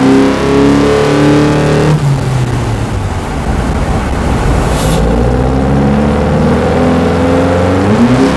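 A 2022 Honda Civic Sport's 2.0-litre four-cylinder engine, breathing through an AEM short ram intake and heard from under the hood, pulls up in revs. It eases off about two seconds in, gives a short hiss about five seconds in, then climbs in revs again near the end.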